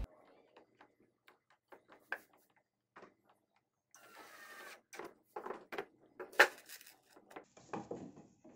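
Scattered light clicks and knocks from hands handling hinge hardware, a steel square and a laminated cabinet door panel, with a short rustling scrape about four seconds in and a sharper knock a couple of seconds later.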